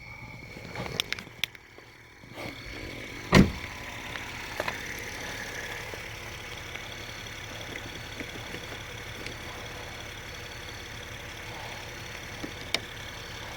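A car engine idling steadily: the Acura running as the jump-start donor beside the dead Malibu. There is a single loud thump about three seconds in and a few light clicks later.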